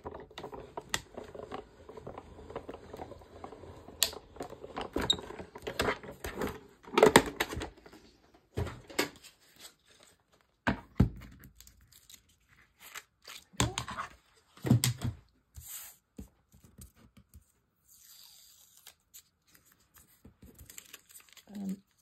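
Provo Craft Cuttlebug die-cutting machine being hand-cranked, the cutting plates and shims rolling through the rollers with a dense ticking grind for the first several seconds. After that come separate knocks and clicks as the plates are handled.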